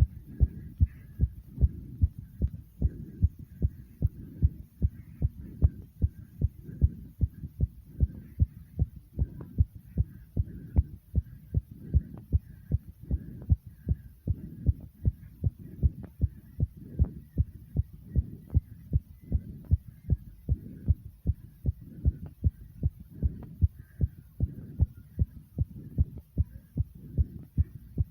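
Human heartbeat racing after exercise: a rapid, even run of low thumps, two or three a second, with a low hum between the beats.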